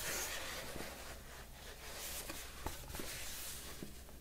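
A cardboard product box being handled and turned in knitted gloves: soft rubbing and scraping of the glove on the box surface, broken by a few light clicks and taps.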